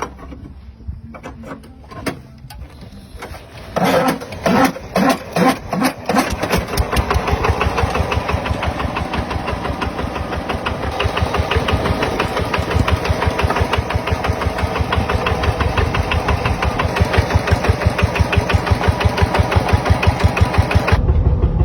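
Kubota diesel engine starting: a few slow, separate firing pulses, then it catches and runs with a steady, even rhythm.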